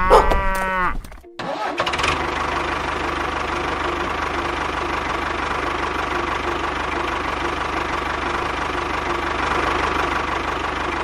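An engine running steadily at an even speed, after a short gliding cry in the first second that cuts off abruptly.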